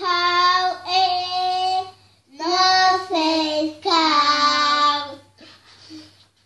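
A young child's voice reading aloud in a drawn-out, sing-song way: two phrases of long, held syllables, falling quiet about five seconds in.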